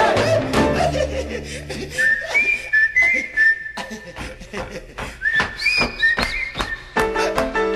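Salsa music: the band thins to percussion strikes under a high, thin, whistle-like melody line, and the full band comes back in about seven seconds in.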